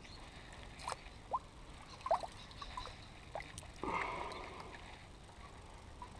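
Faint water lapping against a kayak hull, with a few small plops and a brief louder slosh about four seconds in.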